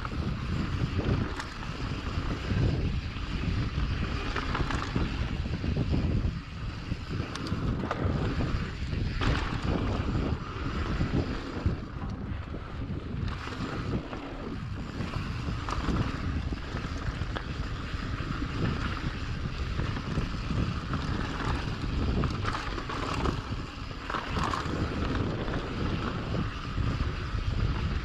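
Wind buffeting a helmet- or bike-mounted GoPro's microphone at riding speed, over the steady rumble and rattle of a mountain bike on a dirt trail.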